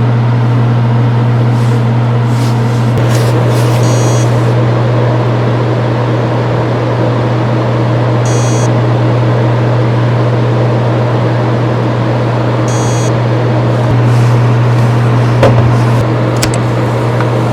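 Hard disk drive powered on, giving a steady low hum with a few faint ticks and a brief click near the end.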